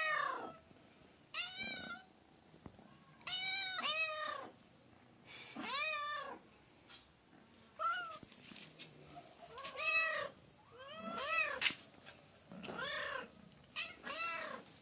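Cats meowing again and again, about ten short meows that rise and fall in pitch, with pauses between them, from a black-and-white kitten and a ginger-and-white cat asking to be fed.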